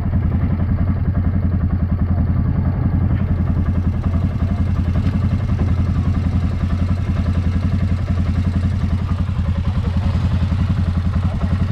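ATV engine running steadily at low revs, a loud, even low-pitched rumble with no revving.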